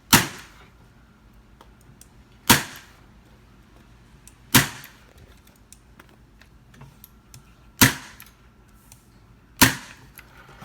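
Staple gun firing staples through upholstery fabric into the stool's wooden frame: five sharp snaps, about two seconds apart.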